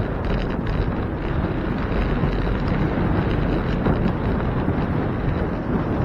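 Steady wind rushing over a moving bicycle camera's microphone as the bike rides along, loudest in the low range.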